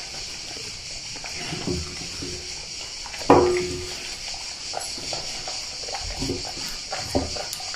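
A dog licking and chewing wet food from a stainless steel bowl, its muzzle knocking the bowl now and then. The loudest is a sharp clank about three seconds in, with the metal bowl ringing briefly after it.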